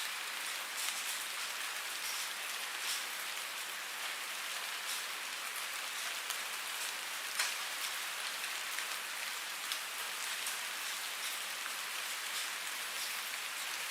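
Steady rain falling, a continuous hiss with the ticks of individual drops hitting a surface scattered through it, one a little louder about halfway through.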